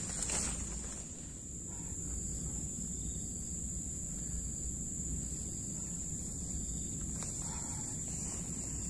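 Insects buzzing steadily at one high pitch, a continuous drone that does not change.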